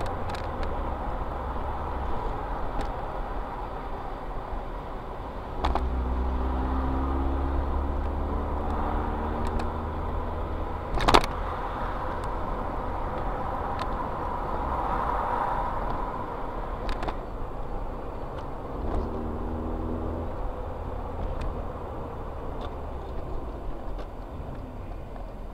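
Car engine and tyre noise heard from inside a moving car, with the engine hum coming up louder twice, about six seconds in and again near twenty seconds. A single sharp knock about eleven seconds in is the loudest moment.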